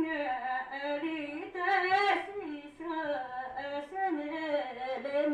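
A lone woman singing a Naxi folk song without accompaniment, her voice sliding between long held notes.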